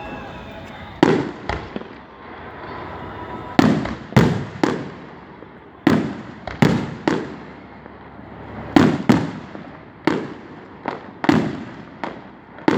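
Aerial fireworks shells bursting: a string of sharp booms, often in quick twos and threes, each trailing off in a rolling echo.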